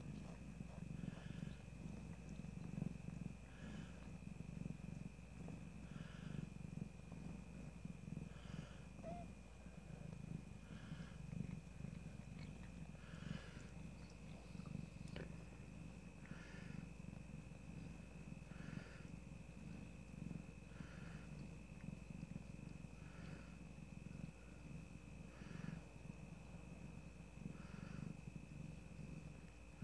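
Tortoiseshell mother cat purring steadily while she lies with her newborn kitten, the purr swelling in a slow rhythm about every two seconds.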